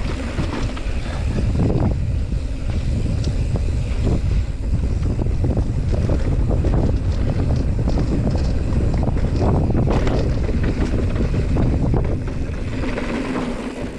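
Wind rumbling on the microphone of a mountain bike descending a rough dirt trail, with steady rattling and clattering from the bike over bumps.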